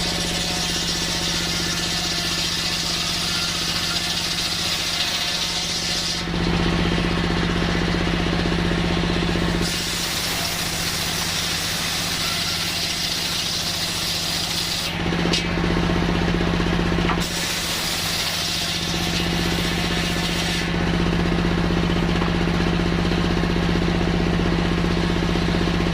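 Sawmill circular saw (serkel) running with a steady mechanical hum, cutting coconut wood; the sound shifts every few seconds between a hissing, rasping stretch and a lower, fuller running sound as the blade goes in and out of the cut.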